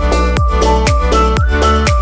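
Upbeat electronic dance music: a steady kick drum about twice a second under synth chords and a melody.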